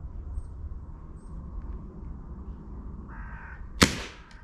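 A .177 Webley VMX Quantum break-barrel spring-piston air rifle fires once near the end: a single short, dry shot, a bit like a dry cough.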